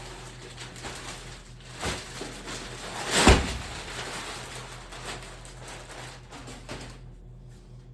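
Grow tent canvas and its packaging rustling as they are unwrapped and handled, with a louder rustle about two seconds in and the loudest one, a sharp rustling thump, about three seconds in.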